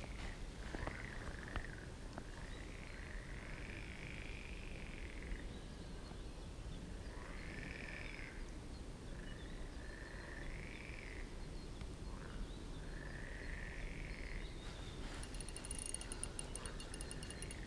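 Frogs calling from the pond, one call every two to three seconds, each about a second long and rising then falling in pitch, over a faint low rumble. Near the end a fast high ticking joins in for about two seconds.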